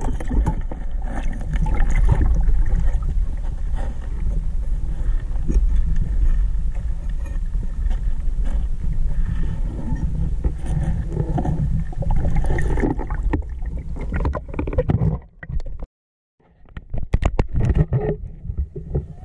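Loud, muffled rumbling of water moving against the camera, with scraping and knocking as it is handled. The sound cuts out briefly about sixteen seconds in, then returns.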